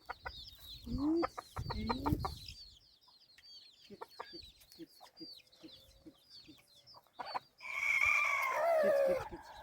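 Chickens clucking, with many short high peeps repeating throughout and one louder, drawn-out call that falls in pitch near the end.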